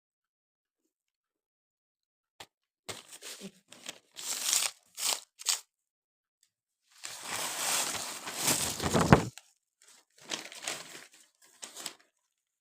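Crisp fried nimki rustling and crunching as the pieces are handled and poured into a jar. A few short bursts come first, then a longer, louder pour of about two seconds, then more short bursts near the end.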